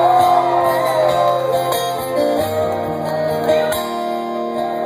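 Live band playing a slow instrumental backing of held guitar chords, with a sliding note that falls in pitch in the first second.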